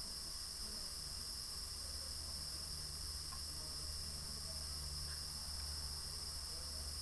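Steady electronic hiss with a low hum beneath it, the recorder's own noise floor, broken only by a couple of very faint ticks.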